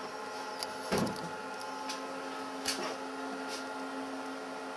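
Steady hum of laboratory equipment, several held tones at once. A dull thump comes about a second in, followed by a few faint clicks.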